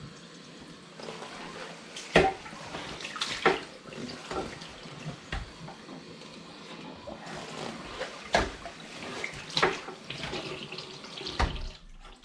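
Tap water running into a sink while a Dyson vacuum hose is flushed out to clear packed dirt and lint, with several sudden sharp sounds breaking through the steady running water.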